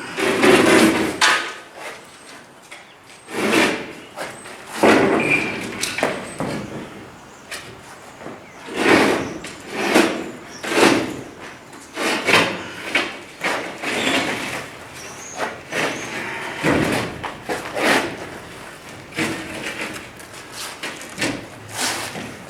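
A series of irregular knocks and scrapes, one every second or two, as heavy floor panels are slid over one another and set down in a stack.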